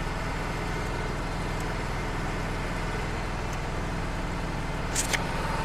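Wood-Mizer LT35 hydraulic portable sawmill's engine running steadily, not cutting. A short sharp click about five seconds in.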